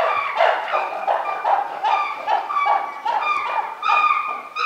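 Chimpanzees hooting in a rapid series, about two to three calls a second, climbing in pitch as the calls build. This is the excited calling of male chimpanzees impatient for their evening feed.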